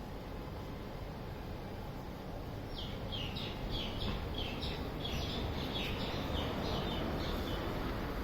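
A bird calling a series of short, high notes that slide downward, about three a second, starting about three seconds in and stopping near the end, over a steady low background rumble.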